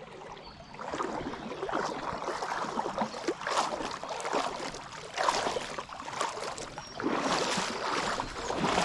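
River water splashing and rushing in uneven swells, loudest near the end.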